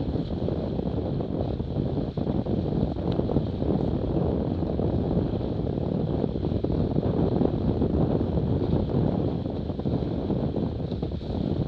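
Steady wind noise on the microphone of a camera aboard a Cirrus F18 catamaran sailing fast, mixed with water and spray running past the hulls.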